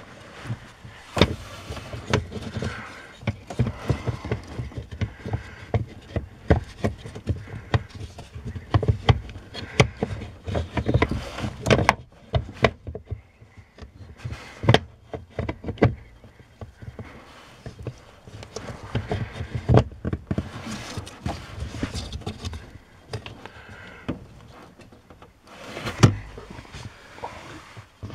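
Irregular clicks, taps and knocks of a plastic accelerator pedal position sensor being handled and fitted onto the pedal assembly by hand, with rustling in between.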